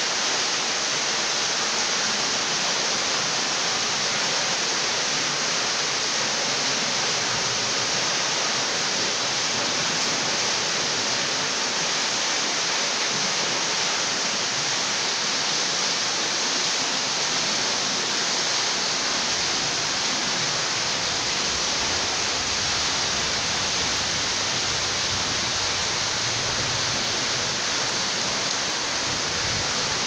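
Water streaming and splashing down the wet rock of a grotto under a waterfall: a steady, even rush of falling water.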